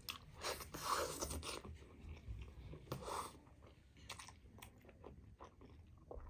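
Close-up chewing and biting of momo dumplings, with wet mouth clicks, loudest about a second in and again near three seconds.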